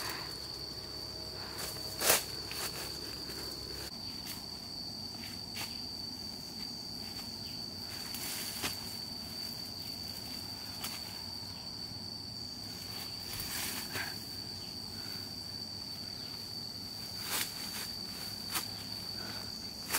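Insects droning in one steady high tone, with scattered rustles and snaps of footsteps through forest undergrowth; the sharpest snap comes about two seconds in.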